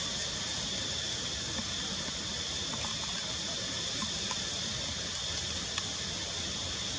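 Steady outdoor background noise: an even hiss with a high-pitched drone over a low rumble, and a faint tick near the end.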